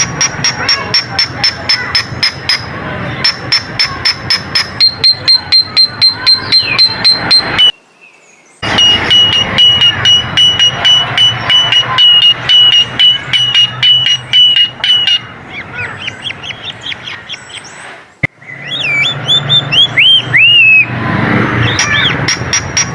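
Coleto (Sarcops calvus) calling: a fast train of sharp clicks over a high, steady whistled tone. The calling stops for about a second some eight seconds in, then goes on, and ends with a few short rising-and-falling whistled notes.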